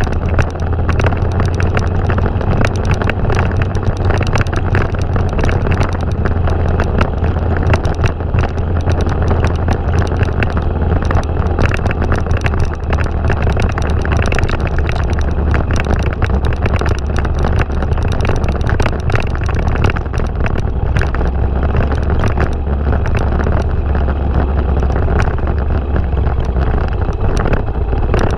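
Kawasaki Super Sherpa dual-sport motorcycle's single-cylinder engine running steadily while riding, with wind buffeting on the microphone.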